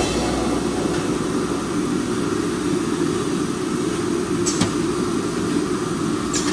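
Bottle shrink-film bundling machine running with a steady mechanical hum. Two short, sharp, high-pitched hissing clicks sound, one a little past the middle and one near the end.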